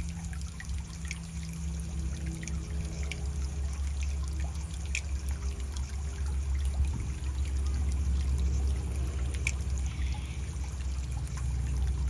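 Water trickling and splashing over a steady low rumble, with a few faint clicks.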